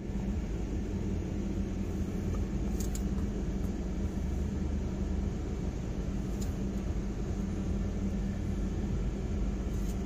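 Steady low rumble and hum inside a car's cabin, with a few faint clicks about three seconds and again about six and a half seconds in, as a duct-taped flat-head screwdriver pries at the plastic console lid panel.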